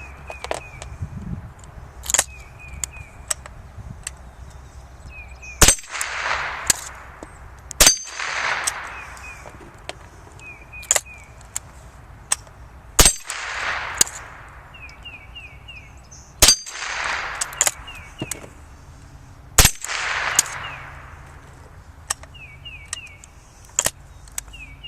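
.22 rifle shots fired one at a time, about half a dozen in all a few seconds apart, with steel dueling-tree paddles clanging and ringing briefly when hit. Smaller clicks come between the shots as the single-shot actions are reloaded.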